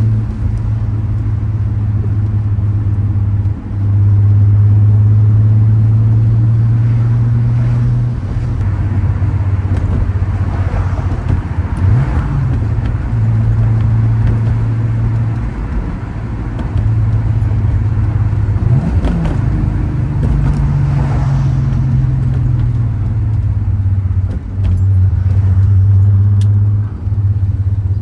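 Turbocharged VR6 engine's exhaust and turbo under way, a loud low drone that rises and drops in level every few seconds. Twice near the middle, a higher sweep rises and falls over it.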